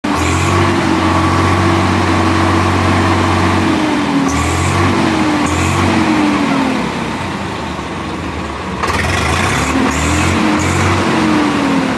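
Swaraj 855 FE tractor's diesel engine running and being revved, its note rising and falling several times as the throttle is opened and eased off.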